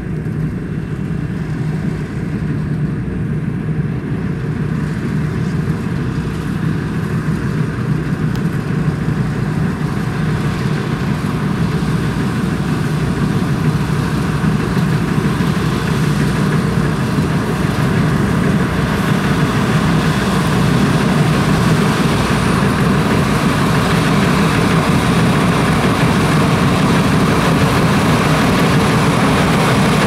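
Sakpattana KM-67 tracked rice combine harvester running steadily while cutting and threshing rice, a constant engine and machinery drone that grows gradually louder through the second half.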